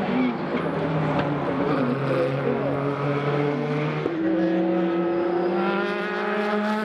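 Le Mans prototype race car engines at speed, a loud, steady, many-note whine. About four seconds in the note changes abruptly and then climbs slowly as the cars accelerate.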